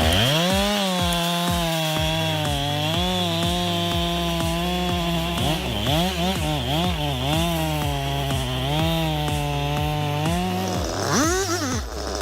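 Two-stroke chainsaw running at high revs while cutting through wood, its engine pitch dipping and recovering several times in the middle and dropping away near the end.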